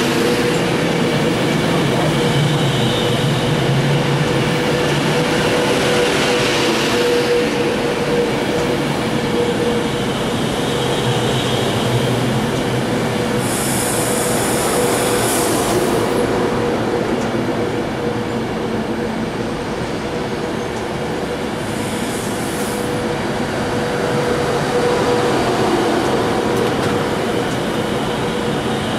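Virgin Trains passenger train rolling slowly past along the platform: a steady hum over the rumble of wheels on rail, with a high wheel squeal about halfway through and a shorter one around eight seconds later.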